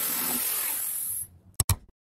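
Electric jigsaw running steadily as it cuts a wooden broomstick dowel, stopping a little over a second in. Shortly after comes a sharp double click.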